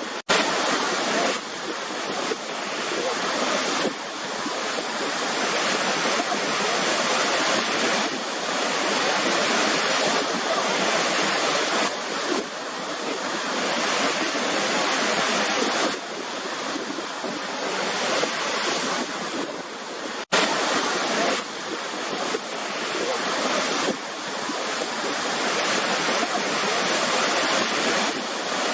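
Waterfall: a steady rush of falling water, with a brief cut-out about twenty seconds in before it resumes.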